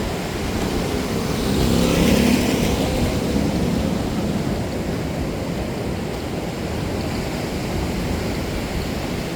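A motor vehicle passes close by, its engine swelling up and fading about two seconds in, over a steady low rumble of wind and surf.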